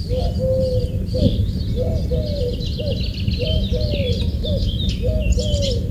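A dove cooing in a repeated phrase of three coos, a short one, a long one and a short one, about every second and a half. Small birds chirp higher over a steady low rumble.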